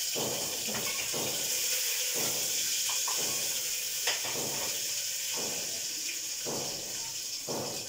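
Chopped onions sizzling in hot oil in an aluminium pressure cooker, a steady hiss, with a wooden spatula stirring through them in repeated strokes about once a second.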